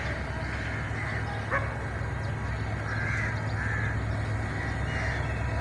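Steady low rumble of a diesel-hauled passenger train running through, with a few short bird calls over it.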